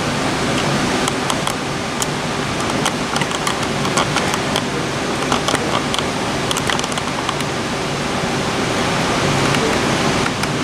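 Model passenger train running on the layout's track: a steady rushing noise with many light, irregular clicks of its wheels over the rails.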